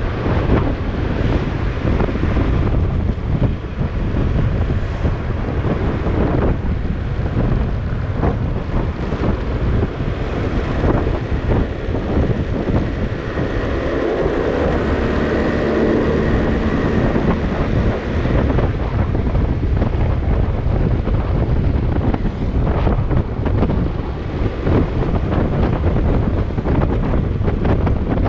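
Wind buffeting the microphone of a moving motorcycle, a loud, steady rumble with gusty flutter, carrying road and engine noise beneath it. A steady hum rises out of it for a few seconds in the middle.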